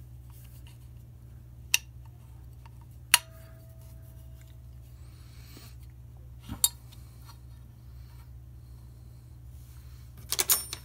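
Metal parts of a brake lathe's disc feed gearbox clicking and clinking as they are handled and fitted into the housing. There are a few separate sharp clicks, one followed by a short ringing tone, and a quick run of clinks near the end, all over a steady low hum.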